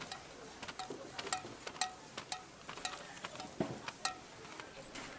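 Steel tongs clicking and clinking against a cast-iron cake mold as baked cakes are picked out: a dozen or so irregular sharp metallic clicks, some with a short ring, and a couple of duller knocks.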